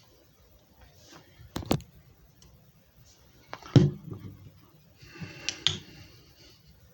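Handling noises: a few sharp knocks and clicks of hard objects, the loudest about four seconds in, with rustling and more clicks between five and six seconds.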